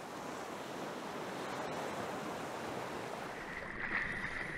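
Steady rushing sea ambience, an even wash of noise with no distinct strokes. A faint steady high tone joins it near the end.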